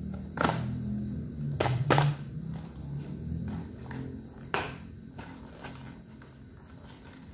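A cardboard Lotte Koala's March biscuit box being torn open at its perforated top seal. The card gives way with four sharp crackles, two close together near the start and one more a few seconds later.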